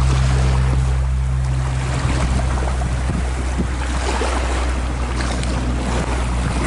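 Small waves lapping and washing on a sandy shore, with wind on the microphone and a steady low hum underneath.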